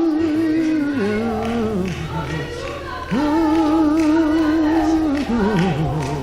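Gospel worship singing: a voice holds long notes with vibrato, with a steady low bass note underneath from about a second in.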